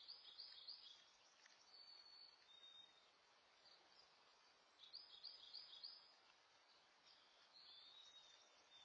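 Faint bird song: a short phrase of about four quick chirps, repeated roughly every five seconds, with a thin high whistle between phrases, over a low background hiss.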